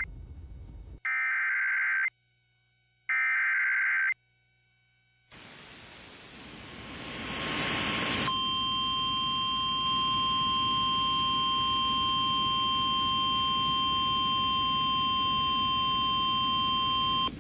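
Emergency Alert System activation heard over FM radio. Two buzzy, warbling data bursts of about a second each (the coded SAME header) come first, then a hiss swells up. It is followed by a long, steady, single-pitched attention tone that holds for about nine seconds and cuts off abruptly.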